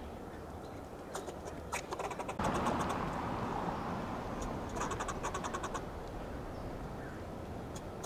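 Fox squirrel giving its alarm call: two runs of rapid, staccato clucking barks, about a second in and about five seconds in. Between them a louder rushing noise starts suddenly and fades over a couple of seconds.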